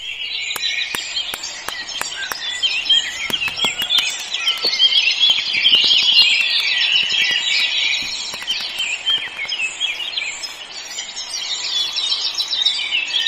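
Many small birds chirping and twittering together in a dense, continuous chorus, with a few faint clicks mixed in.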